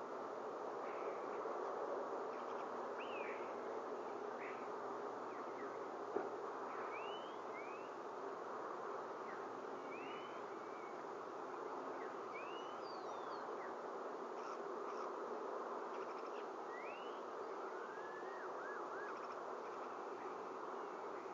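Steady rushing outdoor background noise, with faint short bird chirps scattered through it and a single sharp click about six seconds in.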